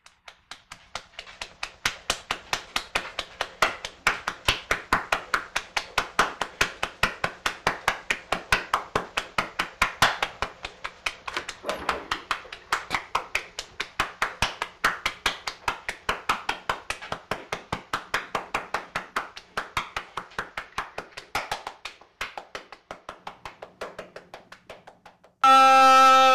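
Rapid rhythmic slapping or tapping, about four sharp slaps a second, kept up for over twenty seconds. About a second before the end it stops and a loud, steady horn-like blare cuts in.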